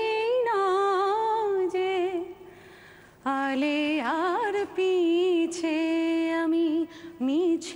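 A woman singing a Bengali song alone, without accompaniment, holding long notes that waver in pitch, with a short breath pause a little over two seconds in.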